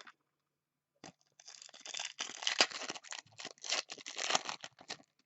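Foil trading-card pack wrapper crinkling and tearing as it is opened by hand, starting about a second in and stopping shortly before the end.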